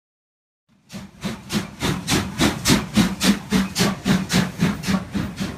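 Steam locomotive working, its exhaust chuffing in even beats about three a second, starting abruptly about a second in.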